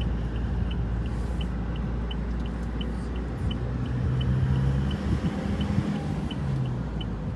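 Steady low rumble of a Toyota car driving, heard from inside the cabin: engine and road noise, with the engine hum growing stronger for a second or two in the middle. A light regular ticking about three times a second runs under it.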